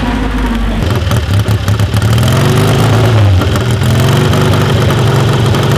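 Classic car engines running at low speed as vehicles drive slowly past. About a second in the sound changes abruptly, and an engine's pitch then rises and settles.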